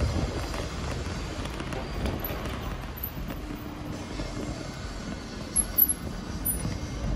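Steady low rumble of street traffic and wind on the microphone, with a short louder bump about five and a half seconds in.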